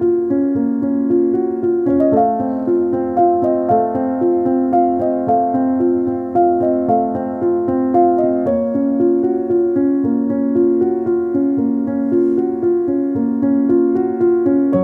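Background music: a gentle piano or electric-piano melody moving through a steady run of notes.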